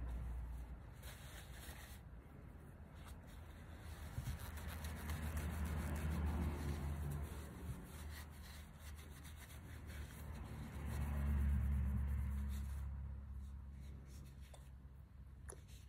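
A tissue rubbing over a glazed ceramic mug as alcohol ink is wiped back from the rim, with the mug being handled and turned; the rubbing swells twice.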